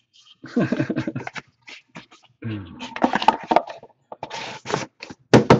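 Hands handling a metal trading-card box, sliding the tray into its metal sleeve with scraping and tapping, mixed with indistinct mumbled vocal sounds.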